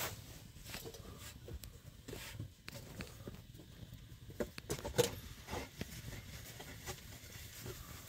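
Open wood fire crackling, with irregular small pops and snaps, the loudest about five seconds in.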